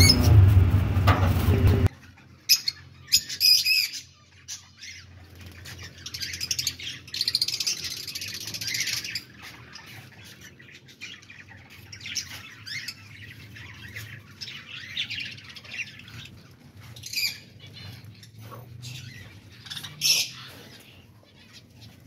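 A colony of lovebirds chirping and screeching in irregular bursts of shrill calls, with a few louder squawks standing out.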